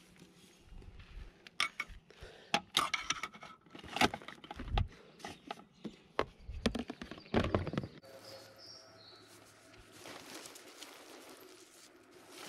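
Close handling noises of camping gear being packed: clatter and rustling of a rubber hose and items knocking inside a plastic storage bin, in a string of sharp clicks and knocks. About two-thirds of the way through they stop abruptly, giving way to quiet outdoor background with a brief high chirp.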